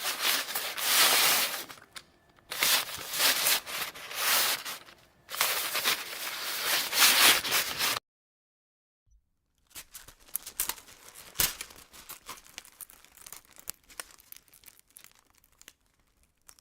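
Three long bursts of dry rustling, tearing-like noise. After a short silence comes a fainter run of scattered crackling clicks.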